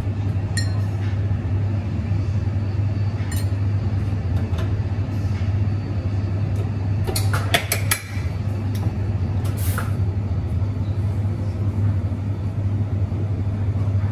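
Espresso bar at work: a steady low hum under the clinks and knocks of metal milk jugs and cups, with a cluster of clinks about seven seconds in and a short hiss just before ten seconds.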